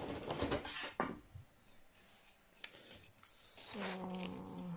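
Rustling and crinkling as a diamond painting canvas and its plastic tool bag are handled, with a sharp click about a second in. It grows quieter after that, with a few small ticks.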